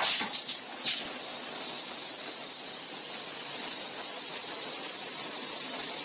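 Steady hiss of a running automatic bottle-filling line, with a short, louder hiss of air about a second in.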